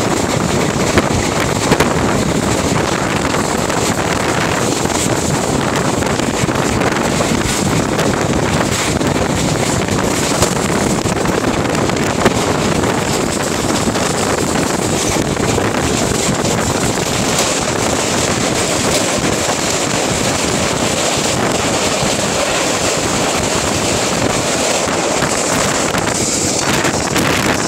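Wind rushing steadily over a phone microphone held at the open window of a passenger train running at speed, mixed with the train's running noise on the track.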